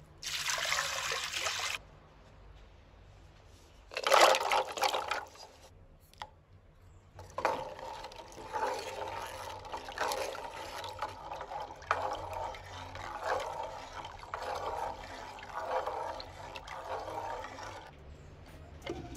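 Water pouring from a clay pot into a large clay pot, then a second, louder splash about four seconds in. Jackfruit seeds are then stirred in the water with a wooden spatula: a sloshing that rises and falls about once a second for about ten seconds.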